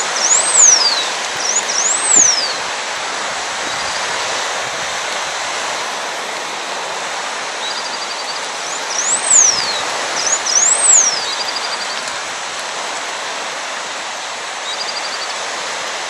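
Blue finch (campainha-azul) singing: two phrases, each a pair of high whistles that sweep up and then sharply down about a second and a half apart. The first comes at the start, the second about nine seconds in, with short rapid runs of notes in between, all over a steady background hiss.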